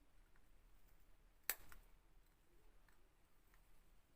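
Near silence with one sharp click about a second and a half in and a fainter one just after: a hand tool working at a burnt LED chip to remove it from the bulb's LED board.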